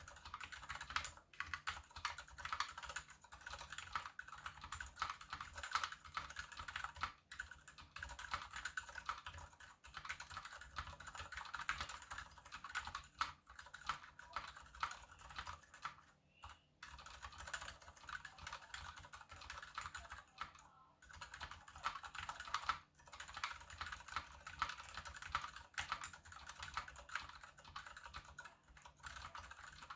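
Continuous typing on a KBD75 mechanical keyboard with unlubed Gateron Silent Brown switches, a PVD brass plate, GMK screw-in stabilizers and PBT DSA keycaps: a rapid run of keystrokes, with short pauses about 16 and 21 seconds in.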